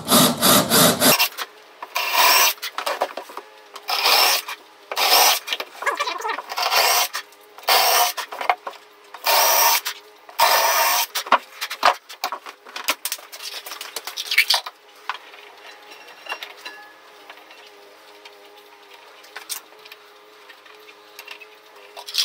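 Cordless drill boring a dowel hole into pine, stopping about a second in. Then comes a string of short, rough rubbing strokes on wood, roughly one a second, for about twelve seconds, before it goes quiet.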